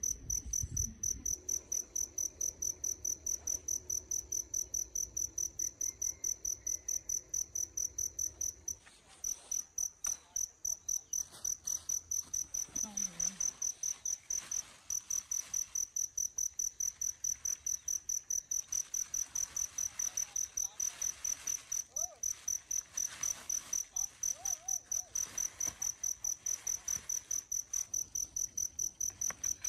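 A cricket chirping in a steady, high-pitched, even rhythm of about three chirps a second, with a short break a little before halfway.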